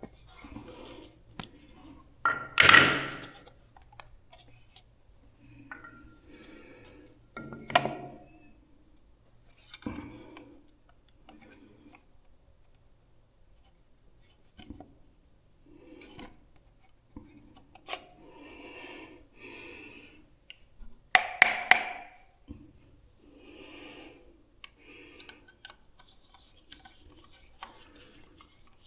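Hand-handling noises of a wall power socket being fitted and assembled: scattered plastic and metal clicks, light knocks and rubbing, with two louder clattering knocks about two seconds in and about twenty-one seconds in.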